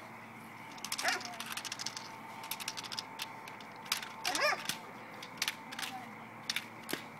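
A dog barking twice during bitework, once about a second in and again midway, with a scatter of short sharp clacks around the barks.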